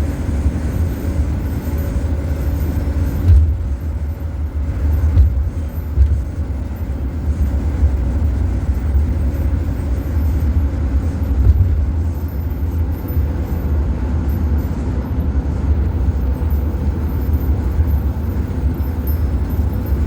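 Road noise of a van driving at highway speed, heard from inside the cab: a steady low rumble of engine and tyres, with a few brief louder thumps about three, five, six and eleven seconds in.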